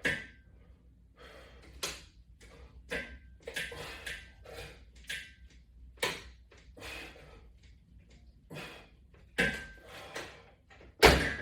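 Resistance-band pull-down reps: a string of short, rasping noisy bursts at uneven intervals of about a second, some with a faint thin whistle in them.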